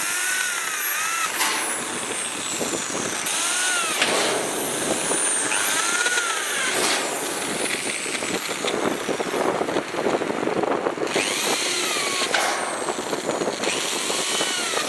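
Power drill boring into steel, running with a steady grinding and a high squeal from the bit that rises and falls in pitch every few seconds as it bites the metal.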